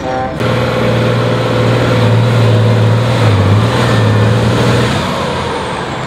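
Tatra trial truck's diesel engine working hard under load as it pulls out of a deep trench, a steady low drone that wavers briefly midway.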